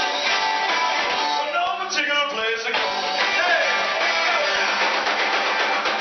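Live band playing upbeat dance music, with a singer's voice heard about two seconds in.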